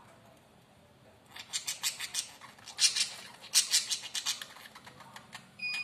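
Pet budgerigars' beaks clicking and scratching in quick clustered bursts as the pair press beaks together, a sound typical of a bonded pair feeding or preening each other. A short budgie chirp comes near the end.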